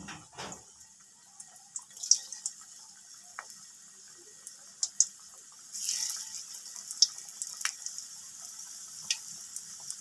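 Vegetable pakoras deep-frying in hot oil in a kadai, a steady sizzle with sharp pops and crackles. The sizzle grows louder about six seconds in as another batter pakora goes into the oil.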